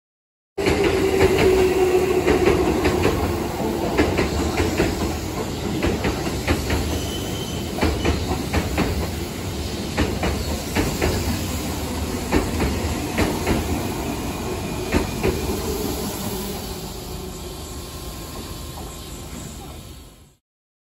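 Keihan 8000-series trains passing at a station: the wheels clatter over rail joints in a rapid run of clicks over a steady rumble, with a steady tone in the first few seconds and brief thin squeals from the wheels. The noise eases as the Liner slows into the platform.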